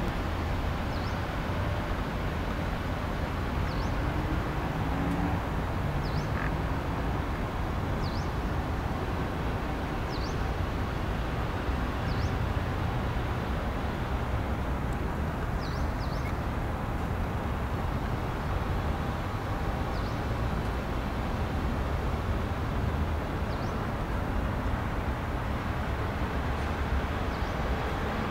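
Steady low rumble of a small utility vehicle's engine working across a grass pitch, with short high bird chirps every couple of seconds.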